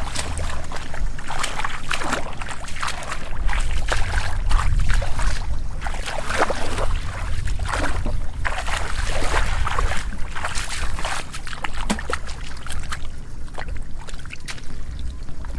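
Irregular splashing and sloshing of shallow muddy water as a person wades through it and gropes in the mud with his hands.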